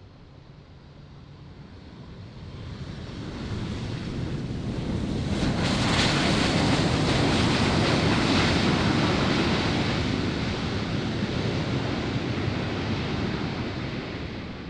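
Jet airliner passing by: an even engine roar that swells over a few seconds, is loudest about six to nine seconds in, then slowly fades.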